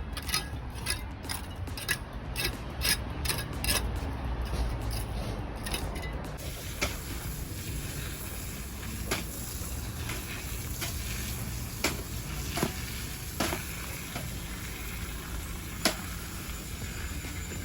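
Sharp mechanical clicks over a low rumble, about two or three a second at first, then after about six seconds only scattered single clicks, the sharpest one near the end.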